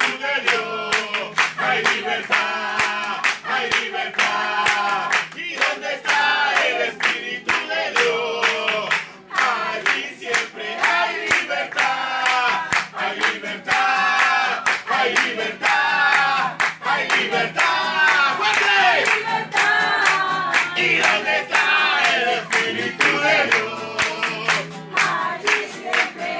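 Congregation singing a worship song together and clapping along in a steady rhythm, with guitar accompaniment.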